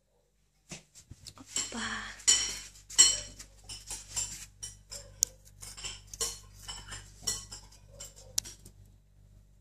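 Rapid, irregular metallic clinking and jingling, many short strikes each with a brief high ring. It starts about a second in, is loudest around two to three seconds in, and thins out toward the end.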